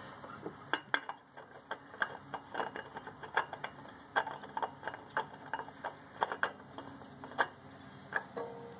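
New Kohler oil filter being spun by hand onto its threaded mount on the engine: a run of light, irregular clicks and scrapes, about two or three a second, as the hand turns and regrips the metal canister.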